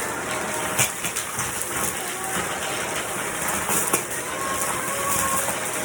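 Vacuum cleaner running with a steady rushing noise, a faint wavering whine riding on it. Two sharp clicks stand out, one just under a second in and one about four seconds in.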